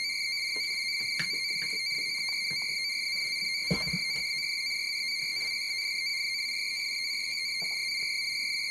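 NAVTEX marine broadcast data signal from an SSB radio tuned to 518 kHz: a steady, high data tone that is being decoded cleanly into text. A few faint clicks and one soft knock come about halfway through.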